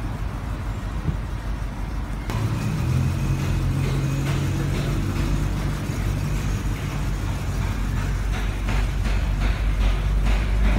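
Range Rover's engine running, a steady low hum with a few short sharp sounds near the end.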